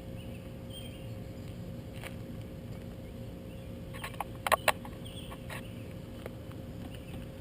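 Honda 400EX clutch lever being squeezed and released to test a newly fitted clutch cable: a few light clicks, the two loudest in quick succession a little past halfway.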